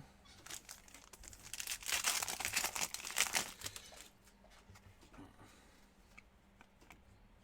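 Wrapper of a pack of football trading cards being torn open and crinkled. There is a dense crackle from about a second in to about four seconds, then fainter rustling.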